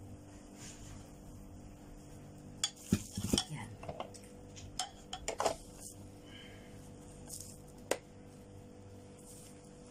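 Kitchenware handled while an electric waffle maker is filled and shut: a ladle clinking against the batter bowl and the waffle maker's lid knocking as it is closed, a cluster of clatters around the middle. One sharp click follows as the lid handle is pressed down.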